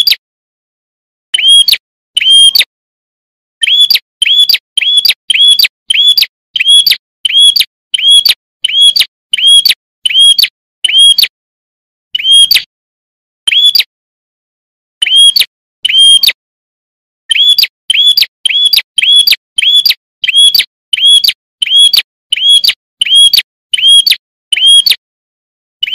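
Prinia (prenjak) calling: a long run of identical short, sharp chirps repeated about twice a second, broken by a few brief pauses.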